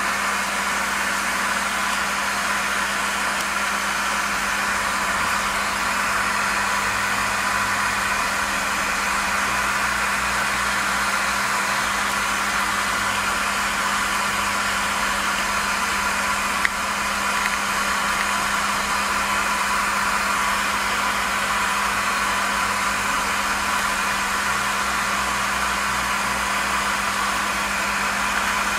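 Hair dryer running steadily on its own, making a constant rush of air over a low motor hum, with one short click about halfway through.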